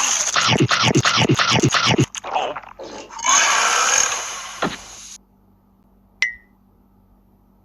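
Edited-in cartoon sound effects: a quick run of sounds falling in pitch, about four a second, for about two seconds, then a rushing noise for about two seconds with a knock in it, and a single short click with a ringing tone about six seconds in.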